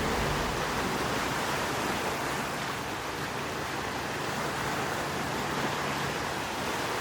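Steady rush of water, an even hiss of noise with no rhythm or distinct events.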